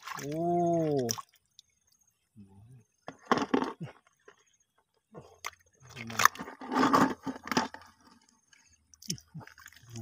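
Hands splashing and scooping through shallow running water over gravel while picking up snails, in two bursts of splashing and clattering. A person gives one drawn-out, rising-and-falling vocal exclamation at the start.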